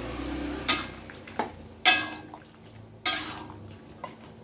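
Metal spoon stirring vegetables through a thick sauce in a metal wok, knocking and scraping against the pan about five times, one knock ringing briefly.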